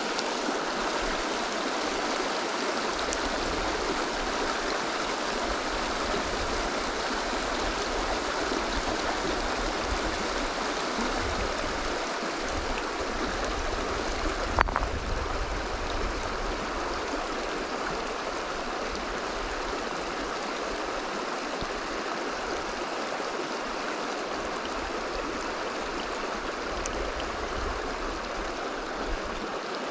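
Shallow mountain river rushing steadily over rocks and riffles. One sharp click about halfway through.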